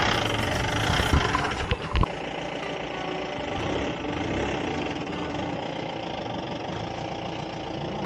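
Steady running noise of a vehicle engine, with a few sharp knocks between one and two seconds in.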